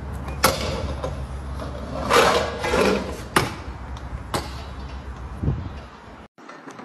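Stunt scooter on brick pavers: the wheels roll with a steady low rumble, broken by three sharp clacks of the scooter striking the ground and a louder scraping for about a second, two seconds in.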